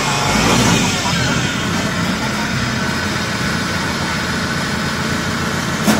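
Engine of a small tracked rice-carrier crawler running steadily as it creeps along on its tracks. A single short knock comes near the end.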